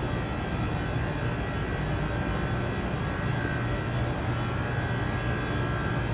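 Steady low mechanical drone with a hum and an even rush of noise, the background of a large factory hall.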